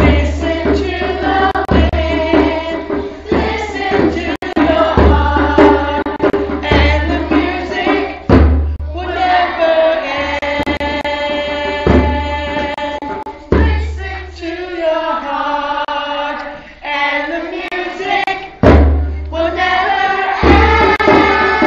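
A song: a group of children singing together over a drum accompaniment, with long held notes.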